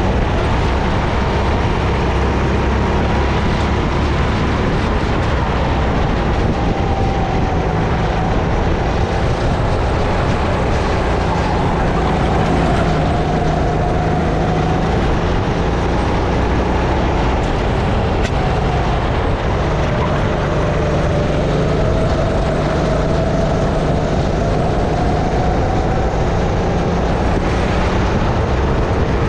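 Sodi RX-8 kart's 270cc four-stroke single-cylinder engine running hard through a lap, its pitch dropping and climbing again several times as the driver lifts and accelerates through corners, heard from the driver's helmet camera over a steady rush of noise.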